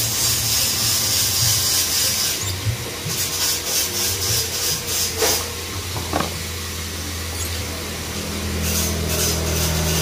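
Wood being sawn close by: a rasping noise that comes in spells with short breaks, over a low steady hum that grows near the end.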